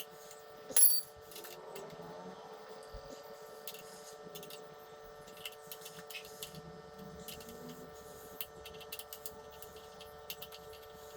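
Metal hand tools clinking: one sharp ringing metal clink about a second in, then light clicks and taps, over a steady electrical hum.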